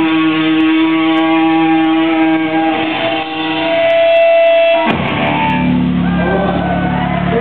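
Live punk band's distorted electric guitars ringing out on one long held chord. About five seconds in it gives way to a lower held drone, with shouts from the crowd rising near the end.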